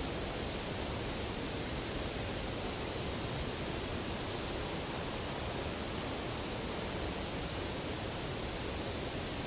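Steady, even hiss of recording noise, with no distinct knock or call standing out.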